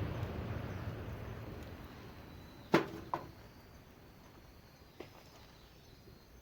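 A rushing noise dying away, then two sharp knocks about half a second apart and a small click near the end, with faint bird calls behind.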